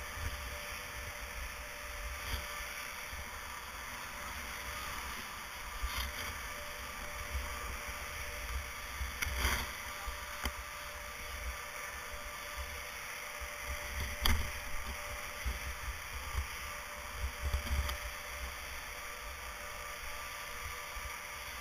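Wind buffeting a helmet-mounted action camera's microphone over a steady rushing hiss, with a few short sharp knocks.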